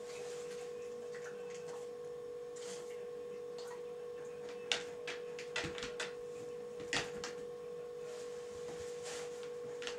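A steady hum at one pitch with a fainter overtone, with a few soft clicks and taps about halfway through.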